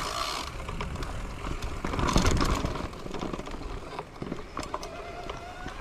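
Wind and road rumble on the microphone of a moving bicycle, with a louder rushing swell about two seconds in and a few light ticks.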